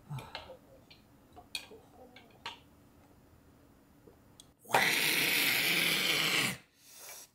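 A few soft clicks while beer is drunk from a can, then a loud, raspy, breathy exclamation of satisfaction after the gulp, the caption's '와핡카카카', held for about two seconds and cut off abruptly.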